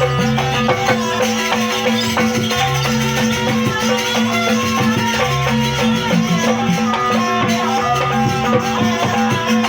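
Live jaranan accompaniment music playing a sampak: a melody over steady held notes, with dense rattling percussion and a low note that comes and goes every second or two.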